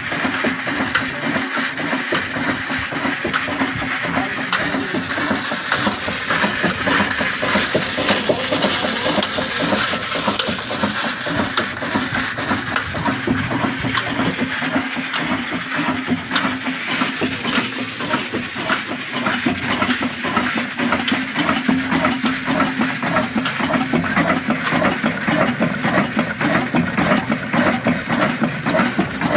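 Shareef 18 hp single-cylinder 'kala desi' stationary diesel engine running steadily, a fast even beat over a steady hum.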